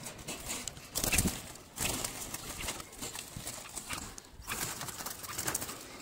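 Clattering and knocking of a wire-mesh bird cage being handled, loudest about a second in, with domestic pigeons cooing.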